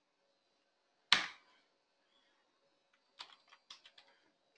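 Computer keyboard keystrokes: a single sharp key press about a second in, then a quick run of about five lighter taps near the end.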